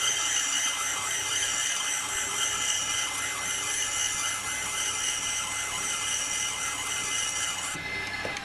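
Valve grinding machine running, refacing a bent valve from a Yamaha XJR1200 cylinder head: a steady high-pitched whine with a grinding hiss that cuts off suddenly near the end.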